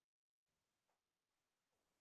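Near silence: a pause in the speech, with the microphone's input gated to almost nothing.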